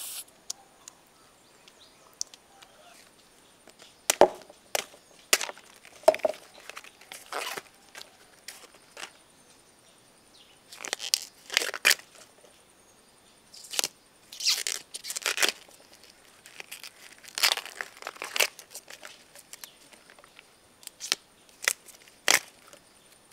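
Purple banana flower bracts being peeled back and torn off by hand, in irregular crisp snaps and short tearing rustles that come in small clusters.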